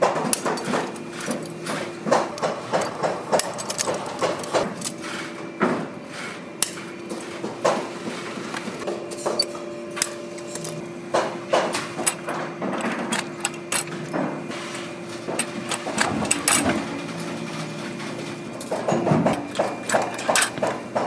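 Irregular sharp metal clicks and clacks of hand pliers working eyelets in a leather boot upper, then an eyelet-setting press crimping a brass eyelet near the end. A steady low hum runs underneath.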